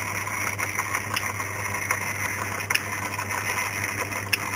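Myford lathe running at slow speed on a coil-winding job, a steady motor hum, with a few sharp clicks from the turns counter counting the armature windings.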